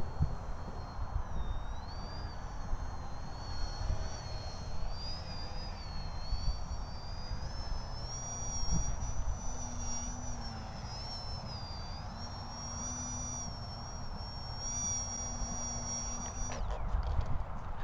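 Foamboard Yak 55 RC plane's motor and propeller whining in flight, the high pitch rising and falling with the throttle, over low wind rumble on the microphone. The whine cuts off suddenly near the end as the plane goes down onto the grass.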